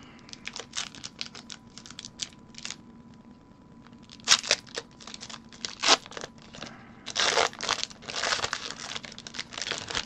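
A foil Pokémon booster pack wrapper being crinkled and torn open, in sharp irregular bursts of crackling that grow louder and denser in the second half.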